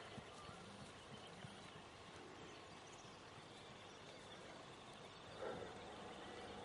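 Faint outdoor background noise, with a couple of soft hoof beats from a cantering horse on grass near the start and a brief, slightly louder noise about five and a half seconds in.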